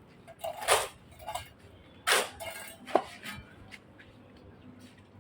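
Hard objects clattering and knocking, with three louder strikes, the last giving a short metallic ring.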